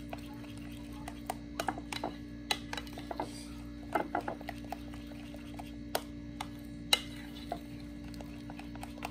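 Metal spoon stirring thick batter in a glass bowl, with irregular clinks and taps against the glass, the sharpest about seven seconds in. A steady low hum runs underneath.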